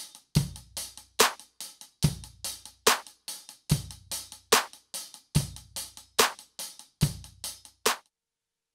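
A trap-style drum beat: an acoustic kick drum with deep booming hits, and a snare drum whose strokes trigger layered electronic samples from a Roland TM-1 trigger module, with fast hi-hat-like ticks between the hits. It cuts off about eight seconds in.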